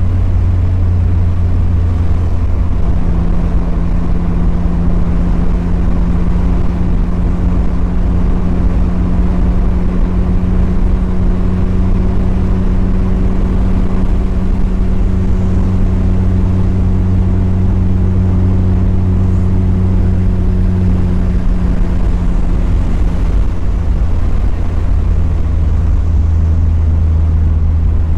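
Mazda Miata's four-cylinder engine and exhaust running at a steady cruise along with tyre and road noise. The engine note holds nearly constant, shifting slightly a few seconds in and again near the end.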